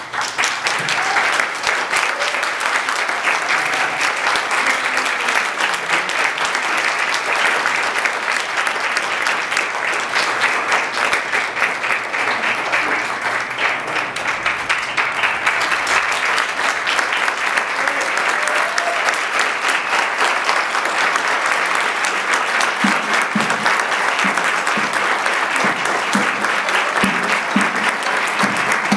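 Audience applause, dense and steady: it breaks out suddenly at the start and keeps going without a break.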